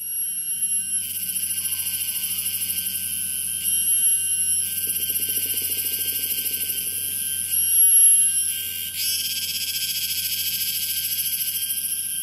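Loud, shrill chorus of tropical forest insects: a high, fast-pulsing drone that shifts in pitch and texture every few seconds, loudest around the middle.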